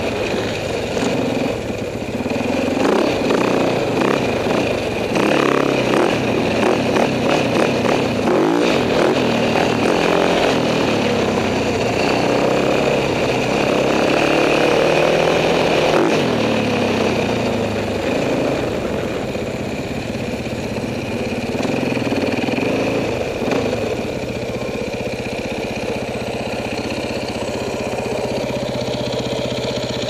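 Husaberg FX450 single-cylinder four-stroke dirt bike engine being ridden, revving up and down through the first half, then settling into steadier, lower running from about halfway through.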